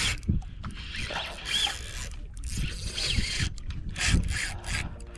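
Spinning reel and rod being handled just after a cast, close to the microphone: rubbing and irregular knocks from the reel mechanism.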